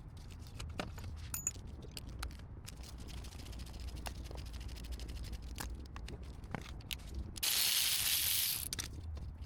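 A socket ratchet clicking in short, irregular runs as 13 mm bolts are worked loose. About three quarters of the way through, a loud hiss lasts about a second and a half and stops suddenly.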